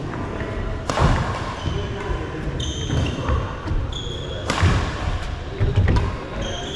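Badminton rally: two sharp racket strikes on the shuttlecock, about a second in and about four and a half seconds in, with short high squeaks of court shoes on the floor in between.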